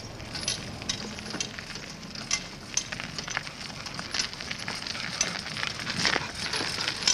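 Small wheels of a dog-drawn cart rolling and crackling over gritty tarmac under a heavy load (a washing machine and a seated man), with many irregular clicks and clinks from the cart and its chain traces.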